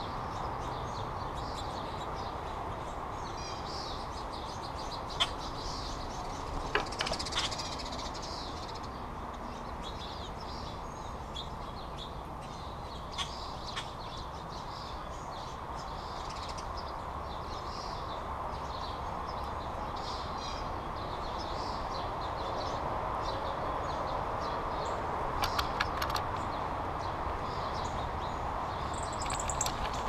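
Wild birds calling and chirping around a backyard feeder, with a few sharp taps and clatters, the busiest cluster about seven seconds in and another near the end, over steady background noise.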